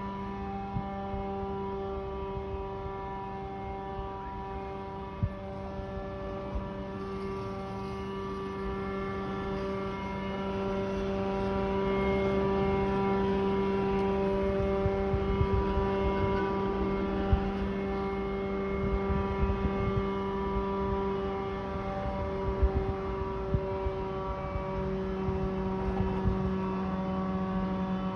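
A loud, steady droning hum of unknown origin, one fixed pitch with many overtones over a low rumble, swelling a little in the middle.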